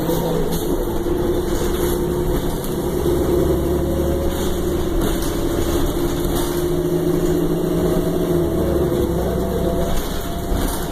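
Cabin sound of a 2009 Orion VII transit bus: engine and drivetrain running steadily, a low rumble with a steady humming tone that shifts a little near the end.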